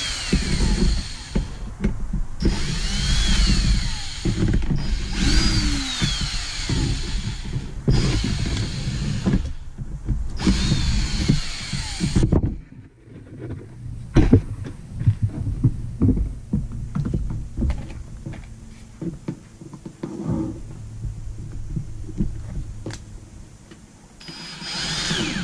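Cordless drill driving screws to mount a car speaker onto a wooden kick panel, in five short runs over the first twelve seconds or so, the motor whine rising and falling in each. Then scattered clicks and knocks of handling, and one more short run near the end.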